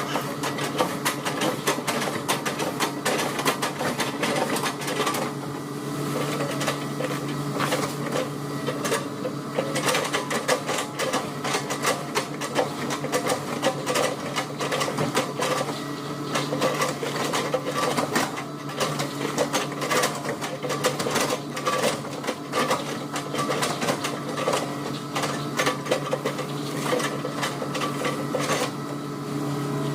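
Hitachi excavator's engine running steadily under a dense, irregular run of knocks and cracks as its bucket chops up felled oil palm trunks.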